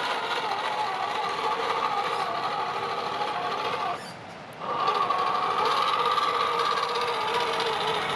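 Small RC crawler's electric motor and gear drivetrain whining steadily as it drives. It stops about four seconds in and starts up again half a second later.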